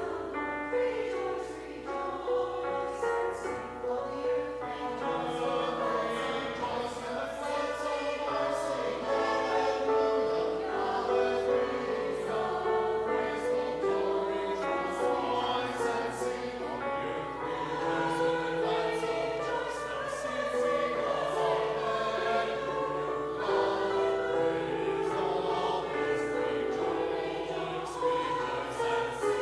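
Mixed church choir of men's and women's voices singing an anthem together, steady and continuous.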